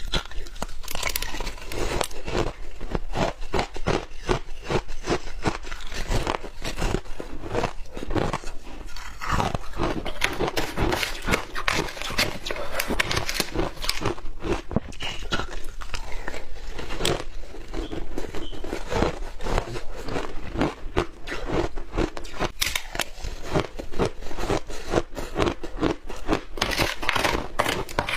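Close-miked biting and chewing of soft shaved ice coated in matcha powder: a dense, unbroken run of quick crunches.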